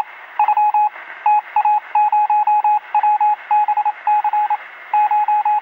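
Morse-code-style beeping: a single high tone keyed on and off in short and longer pulses, in irregular groups, over a constant radio-like hiss with a narrow, telephone-band sound.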